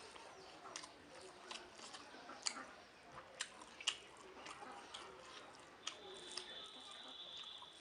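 Close-up wet chewing and mouth smacks of a person eating khichuri with egg curry, with sharp clicks every half second or so. About six seconds in, a steady high-pitched tone starts and holds.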